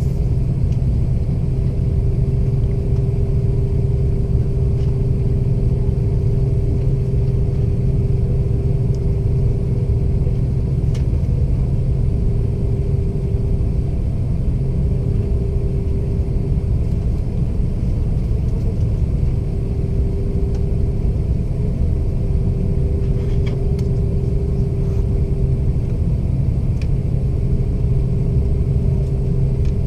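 Steady drone of an Airbus A330's jet engines and airflow heard inside the passenger cabin, a deep rumble with a constant hum tone over it.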